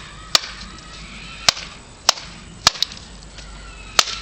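Machete blade chopping into wood: six sharp strikes at uneven intervals, two of them in quick succession near the middle.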